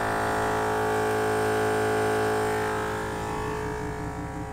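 Air compressor running steadily to inflate off-road tires, a continuous hum and whine that gets a little quieter near the end.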